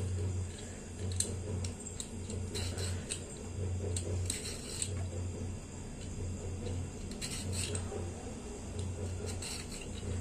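Old hand-held vegetable peeler scraping the tough ridged skin off a ridge gourd (peerkangai) in a few short strokes; the peeler is old and the peeling is hard going. A low pulsing hum runs underneath.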